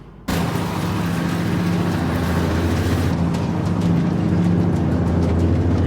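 A car engine running steadily, a low drone that cuts in abruptly a moment in.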